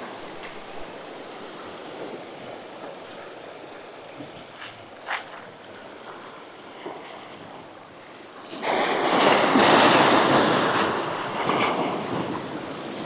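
Ocean surf washing against a rocky shore, a steady rush, with a wave breaking loudly on the rocks about nine seconds in, surging and then slowly fading.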